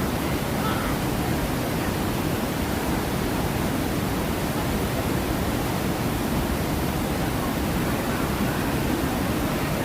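Steady rushing water: waterfalls and rapids of the rafting ride's artificial river.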